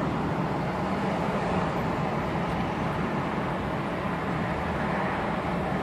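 Steady road and engine noise of a moving limousine, heard from inside the cabin.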